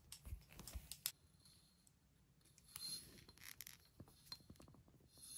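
Faint clicks and scraping of multimeter test probes being pushed into a battery pack's connector, in two short spells of handling.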